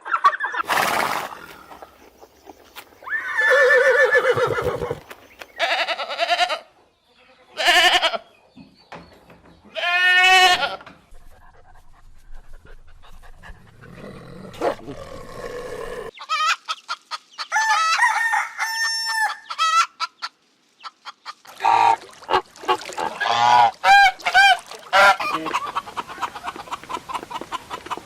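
A run of separate farm-animal calls, one after another with short gaps and abrupt changes between them, domestic fowl among them. Busier, overlapping calling starts about three-quarters of the way through.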